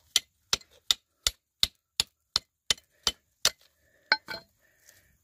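Small hammer striking a chunk of quartz held on a rock: about ten sharp, evenly spaced blows at about three a second, then a pause and two quick blows a little after four seconds in. The quartz is being broken open to look for gold inside it.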